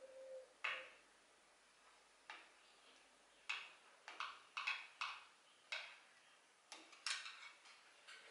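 Light, irregular metallic clicks and taps, about ten of them, from a screwdriver working the small screws on the metal head of a longarm quilting machine.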